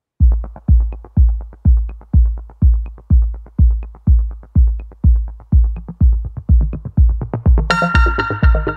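Background electronic music with a steady heavy kick-drum beat, about two beats a second; a higher synth layer comes in near the end.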